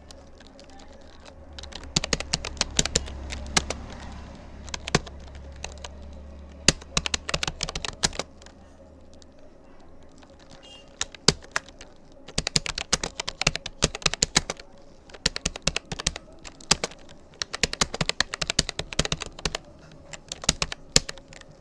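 Keys of a Rapoo computer keyboard being typed in fast, irregular runs of clicks, with a pause of a couple of seconds near the middle. A low hum sits under the first half and then stops.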